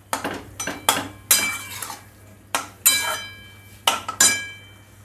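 Steel spatula stirring pasta in a metal wok, knocking and scraping against the pan: a string of sharp, ringing clanks at an uneven pace, several to a second at times.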